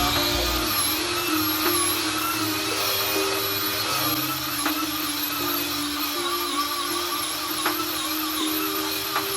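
High-speed power tool motor whining steadily, its pitch wavering slightly, with a few faint ticks, under background music.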